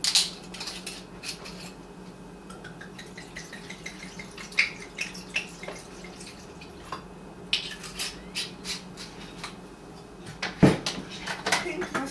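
Pink Moscato wine poured from a bottle into a blender jar of cut fruit and ice, with scattered light clicks and clinks and one thump near the end.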